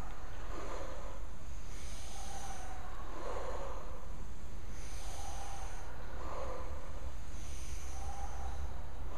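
People breathing audibly in slow, regular breaths, about one breath cycle every three seconds, in time with a guided breathing-and-movement exercise. A steady low rumble lies underneath.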